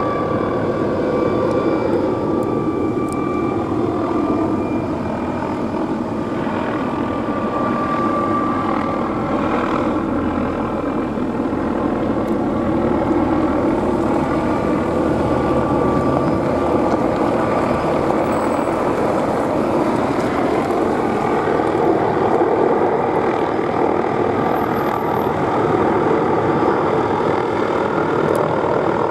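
McDonnell Douglas MD520N NOTAR helicopter in flight: its turbine engine and main rotor run steadily, with a whine whose pitch slowly bends up and down as the helicopter moves.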